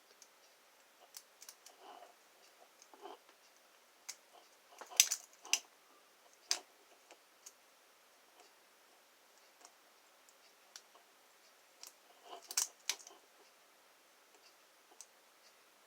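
Lock pick and tension wrench working the pins of an American 1305 series padlock: scattered small clicks and scrapes, with louder clusters about five seconds in and again about twelve seconds in.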